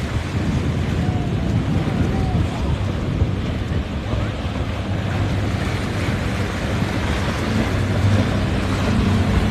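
Wind buffeting the microphone over breaking surf, with the steady low drone of a boat's engine that grows a little stronger in the second half.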